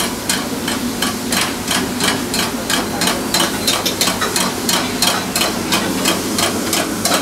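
Steady rhythmic knocking of sharp strokes, about three or four a second, over a steady low hum in a working kitchen.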